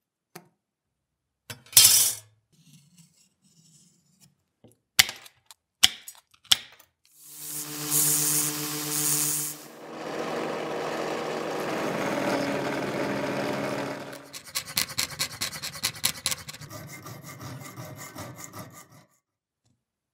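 Small-workshop metalworking on thin copper sheet. After a few sharp clicks, a bench drill press motor starts up with a steady hum, then drills through the copper disc. Near the end come quick, repeated back-and-forth strokes of a hand tool on the metal.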